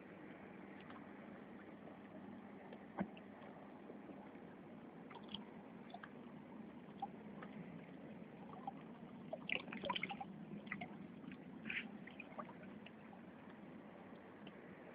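Faint wet smacks and clicks of a dog's mouth picking at and licking fish, scattered at first and coming more thickly about two-thirds of the way in, over a steady low hiss.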